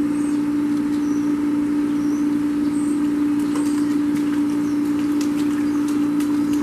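A steady, unchanging low hum on one pitch, with a few faint, short, high chirps over it.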